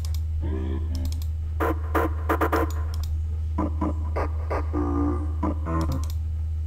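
Sampled female vocal chops from the Nexus synth's 'AR Female Voice Cutz' presets, auditioned one after another: short sung syllables and a few held vocal notes. A steady low drone runs underneath.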